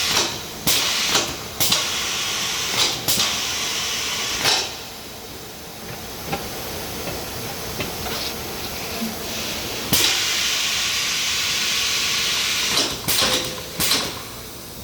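Tyre changer's compressed air hissing steadily, with sharp clicks and knocks as the tool head is worked down onto the rim. The hiss drops away about four and a half seconds in and comes back at about ten seconds, followed by a few more knocks near the end.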